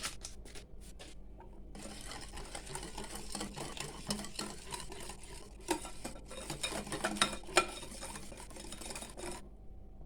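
A utensil stirring cake batter in a bowl, mixing in flour and baking powder: a steady scraping with a few sharper knocks against the bowl, stopping near the end.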